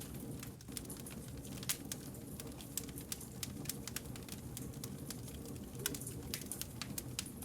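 Wood fire crackling: many sharp snaps and pops, irregular, over a steady low rumble of the burning logs.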